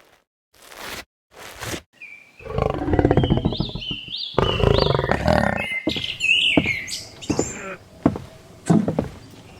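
An animal roaring and growling, beginning about two seconds in after a near-silent start, with a run of short high cries rising and falling over it.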